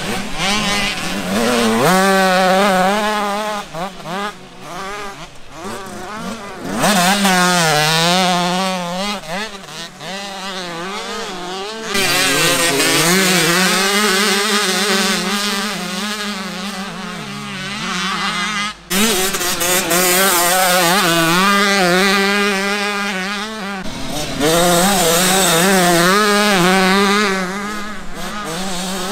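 65cc two-stroke motocross bike engines revving hard, their pitch rising and falling over and over. The sound changes abruptly every few seconds as one clip cuts to the next.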